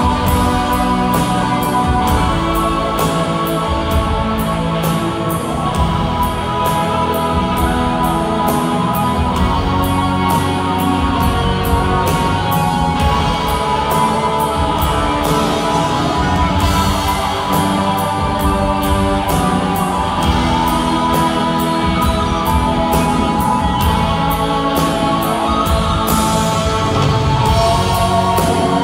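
Live rock band playing loud and amplified, with a steady drum-kit beat under electric guitars, bass and keyboards, heard from the audience.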